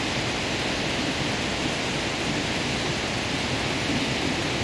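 Steady rain and rough surf breaking on the shore, blending into one continuous wash of noise.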